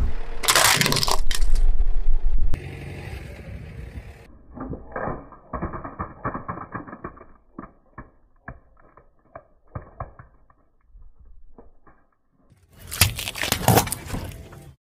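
A car tyre rolling over and crushing a hollow green plastic toy: a loud crunch, then a long run of small plastic cracks and snaps as the pieces break under the tyre. Near the end comes another loud crunch as a tyre squashes a watermelon.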